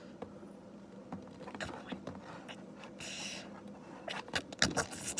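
Faint rustling of a fabric robe and small clicks of a plastic action figure being handled as its arm is pushed through the sleeve, with a brief soft hiss about three seconds in.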